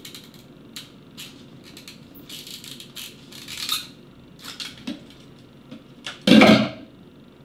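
Light clicks, clinks and rustles of small objects being handled at a kitchen counter, with one louder, brief clatter about six seconds in.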